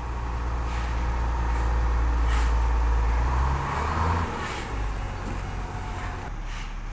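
Truck crane's diesel engine running with a low, steady rumble, its note shifting a little just past halfway through, with a few short hisses on top.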